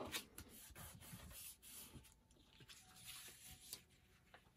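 Faint rustling and rubbing of paper as hands smooth a freshly glued page flat onto a fabric hinge and then lift and handle the pages, with a few small taps and scrapes.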